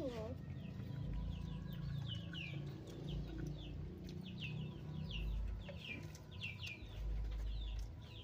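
Chicks peeping: a steady run of short, high peeps, each falling in pitch, over a low rumble that comes and goes.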